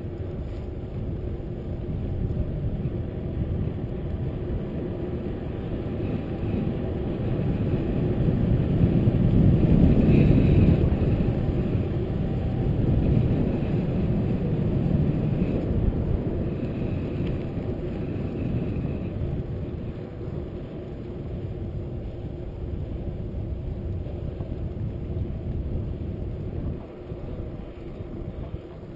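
Wind rushing over the action camera's microphone and the rumble of a mountain bike's knobby tyres rolling on asphalt while riding. It swells to its loudest about ten seconds in, then eases.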